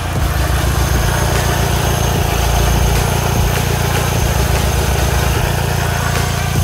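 Audi 1.8-litre turbocharged four-cylinder engine running steadily at a low, even speed.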